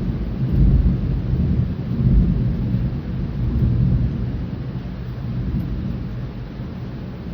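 Thunder rolling and rumbling deep and low, swelling twice in the first couple of seconds and then slowly fading, over a faint steady hiss of rain.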